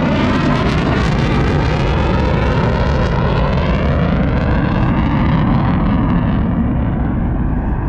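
F-35 fighter jet passing by: loud, steady jet noise with a sweep sliding down in pitch, the high hiss fading away toward the end as the jet moves off.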